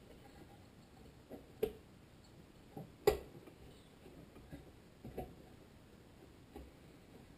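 Scattered light clicks and knocks as a Tecumseh HSK70 engine's connecting rod is worked by hand onto the crankshaft inside the open crankcase, trying to line it up; about eight knocks, the loudest about three seconds in.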